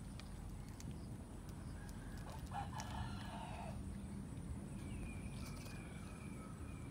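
A rooster crowing: one long call about two seconds in, then a higher, thinner drawn-out call near the end, over a steady low hum with a few light ticks.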